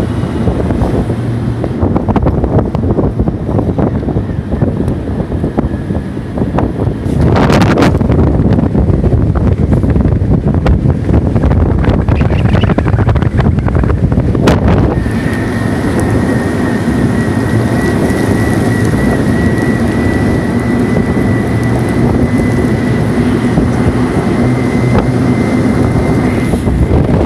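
All-terrain vehicle on low-pressure tyres driving off-road, its engine and drivetrain running steadily and loudly, with a knock about seven seconds in and a sharper one about fifteen seconds in. From about fifteen seconds a steady high whine joins the running noise.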